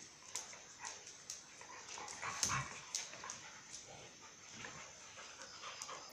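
Two dogs play-fighting: scuffling with scattered sharp clicks and taps, and a louder scuffle about two and a half seconds in.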